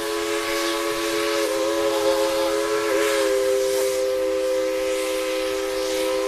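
Steam locomotive whistle blowing one long, steady blast, its pitch wavering briefly a couple of times.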